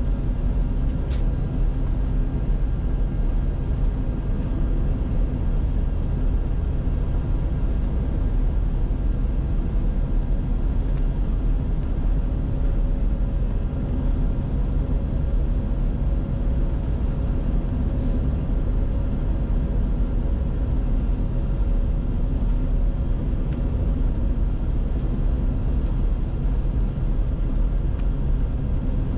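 Steady cockpit noise of a Bombardier Challenger 605 jet on final approach, with landing gear down and flaps at 45: an even low rumble of airflow and engines with faint steady hums over it.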